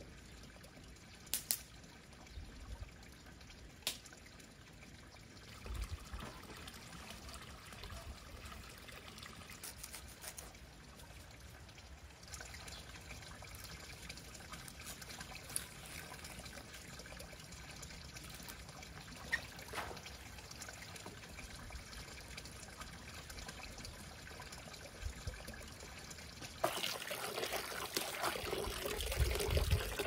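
Faint steady trickling water, with a few sharp clicks. About 27 seconds in, louder running water splashes into a bucket where leafy greens are being rinsed.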